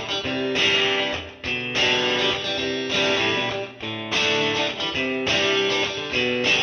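Background music led by guitar, played in short phrases with brief breaks.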